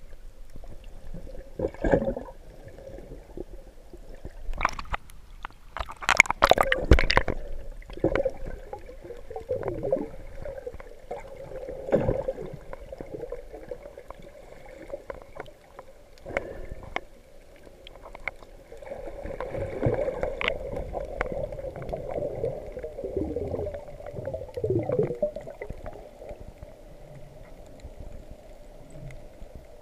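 Water sounds picked up by a GoPro camera recorded underwater, with a constant low hum and louder bursts of water noise about six seconds in and again around twenty seconds in.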